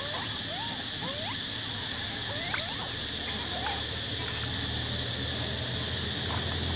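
Macaques calling: a run of short, rising chirp-like coos, then a brief shrill squeal about three seconds in, the loudest sound here. A steady insect drone runs underneath.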